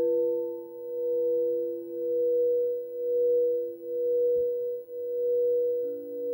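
Crystal singing bowl sung by a mallet circling its rim: one steady pure tone that swells and fades about once a second, over the lingering ring of another bowl struck just before. Near the end a lower bowl tone joins.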